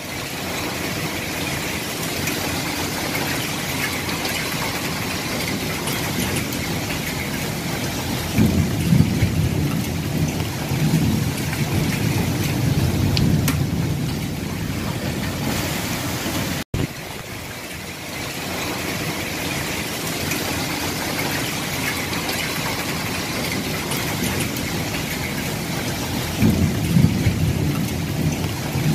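Flash floodwater rushing down a street as a steady wash of noise. Heavier low rumbles come from about 8 to 15 seconds in and again near the end. The sound drops out for an instant about two-thirds of the way through.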